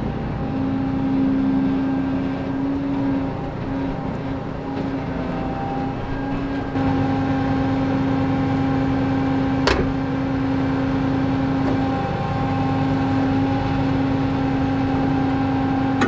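Claas Lexion combine harvester running steadily at close range, a constant drone with a held tone over it; its low rumble grows louder about seven seconds in. A single sharp click near the middle.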